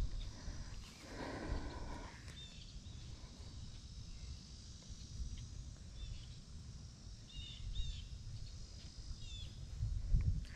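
Wind rumbling on the microphone, with several short, high bird chirps scattered through it.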